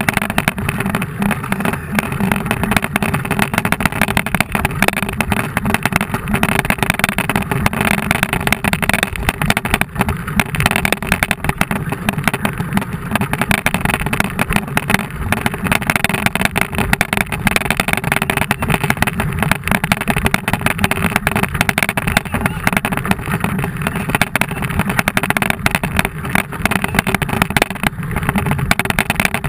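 Steady rush of wind over a bike-mounted GoPro's microphone, mixed with the rolling noise of a mountain bike's tyres, as the bike moves at speed.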